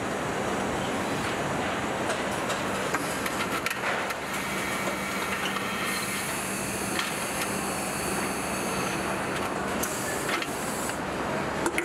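Assembly-plant machinery noise: a steady hum and hiss with scattered short metallic clicks and clanks.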